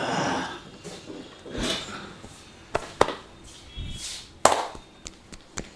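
Percussive hand strokes of an Indian barber massage: a handful of sharp, irregular slaps and claps of the hands on the body, the loudest about three and four and a half seconds in.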